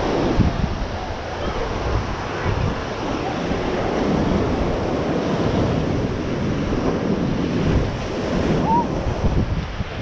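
Ocean surf washing onto a sandy beach in a steady wash, with wind buffeting the microphone.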